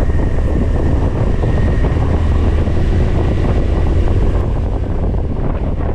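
Heavy wind noise on the microphone of a moving RKS Newlight 125 Pro scooter, with the engine running underneath. The noise holds steady throughout.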